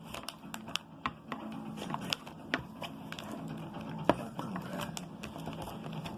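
Irregular small clicks, taps and scrapes as scissors dig stuck modelling dough out of a plastic tub, over a faint low steady hum.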